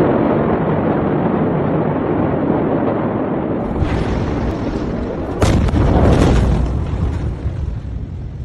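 The Beirut port explosion of 2020, a detonation of stored ammonium nitrate, recorded on a handheld phone. A steady rushing noise comes first, then about five and a half seconds in a sudden, very loud boom of the blast wave arrives and dies away over the next two seconds.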